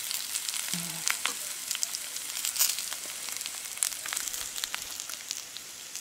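Sliced potatoes sizzling and crackling as they fry in a hot pan, with the clicks and scrapes of a metal spoon stirring them.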